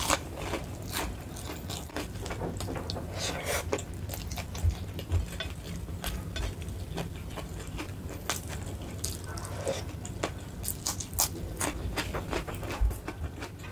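Close-miked eating sounds: chewing with many short, sharp crunches and clicks, irregular and continuous.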